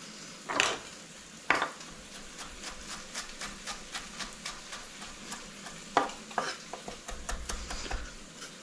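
Chef's knife chopping sage and parsley on a wooden cutting board: quick, repeated taps of the blade, about four or five a second, with a few louder knocks. Under it a steady sizzle from vegetables softening in a sauté pan.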